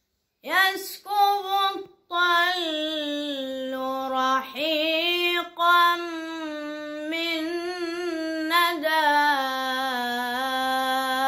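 A boy chanting an ibtihal (Islamic devotional chant) solo and unaccompanied. After two short phrases he holds a long ornamented line on drawn-out vowels, wavering in pitch, with brief breaks for breath.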